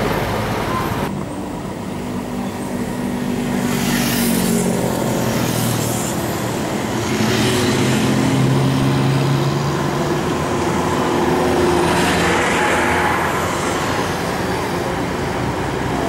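Road traffic passing close by: cars, motorbikes and larger vehicles go by one after another, several swells of engine and tyre noise, with low engine drones that hold and shift in pitch as each vehicle passes.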